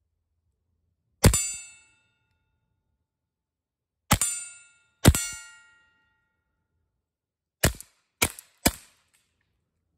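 Suppressed .22LR Ruger Mark IV SSH pistol with a SilencerCo Switchback suppressor fired six times at steel targets. Each shot is a quiet crack. The first three are spaced a few seconds apart and leave the steel plate ringing. The last three come in quick succession near the end and die away sooner.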